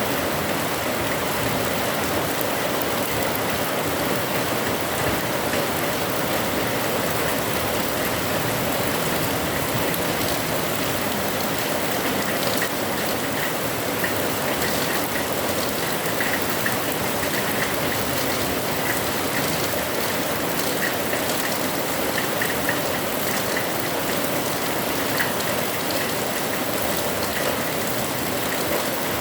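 Heavy rain falling steadily, a dense even hiss without letup.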